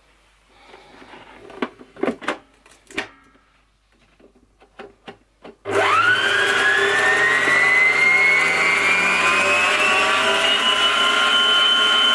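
A few clicks and knocks as the tilt head of a Moulinex stand mixer is brought down over the bowl, then about six seconds in its motor starts with a whine that jumps up in pitch and keeps climbing slowly before holding steady, the whisk beating egg whites and sugar for meringue.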